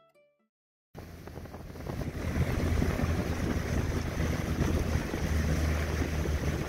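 The last plucked harp notes fade out, then after about a second of silence a small boat under way comes in. Its engine runs with a steady low drone, with wind buffeting the microphone and water splashing along the hull.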